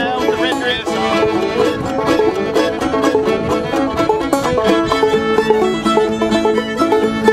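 Music from a string band: quick plucked notes over held bowed tones, with a steady pulse.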